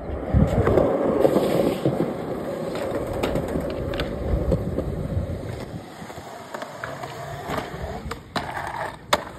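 Skateboard wheels rolling over concrete, a rough steady rumble that eases off as the board slows. Near the end, two sharp clacks of the board on the ledge.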